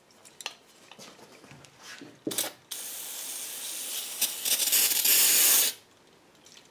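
Aerosol brake cleaner spraying: a short burst, then a steady hiss of about three seconds that cuts off suddenly, flushing out the armature of an old repulsion-induction motor. A few faint handling clicks come before the spray.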